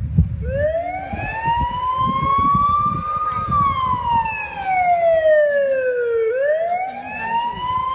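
Police siren wailing: its pitch rises slowly for about three seconds, falls for about three, then rises again near the end.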